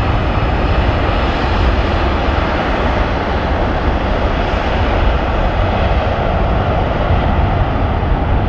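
Airbus A340-300's four CFM56 turbofan engines at take-off power during the take-off roll: steady, loud jet noise, strongest in the low end.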